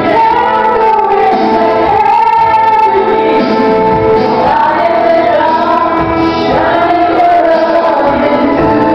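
A woman singing karaoke into a handheld microphone over backing music, holding long notes.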